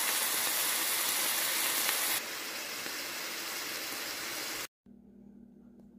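Ground beef sizzling as it fries in a skillet. About two seconds in, the sizzle drops to a softer level, and near the end it cuts off abruptly, leaving a faint low hum.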